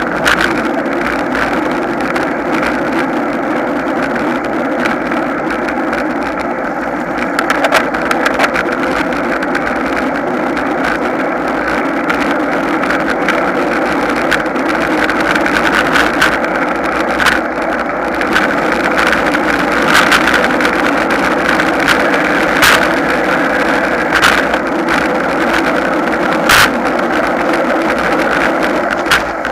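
Steady wind and road rush picked up by a camera mounted on a road bicycle riding at speed, with a few sharp clicks or knocks scattered through it.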